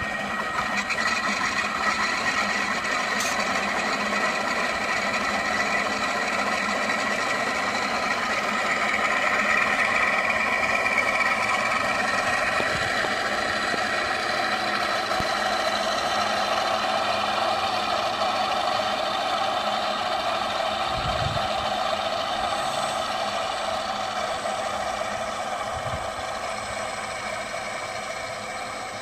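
Propellers and motors of three radio-controlled model T-28 Trojan planes running together as they taxi, a steady layered drone of several pitches that drifts a little and fades slightly near the end.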